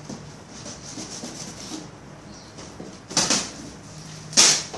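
Blade cutting and scraping along the packing tape on a cardboard shipping box, a continuous scratchy rubbing, with two louder, sharper strokes about three and four and a half seconds in.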